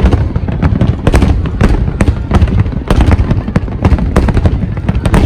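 A dense barrage of aerial fireworks bursting, several sharp bangs and crackles a second over a continuous deep booming rumble.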